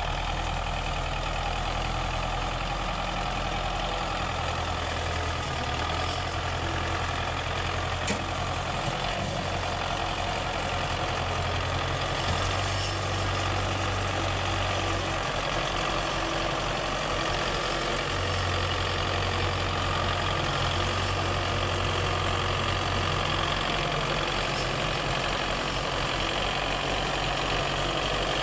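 Belarus 510 tractor's diesel engine working hard as it pulls a heavily loaded sugarcane trolley. Its steady low note steps up and down in pitch every few seconds as the load and throttle change.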